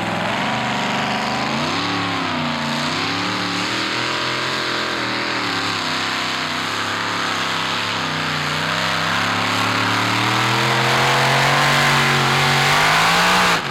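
A modified-class pulling tractor's supercharged engine runs at full throttle while pulling the sled. Its pitch wavers in the first seconds, then climbs and grows louder over the last few seconds, and the engine note drops away abruptly at the very end.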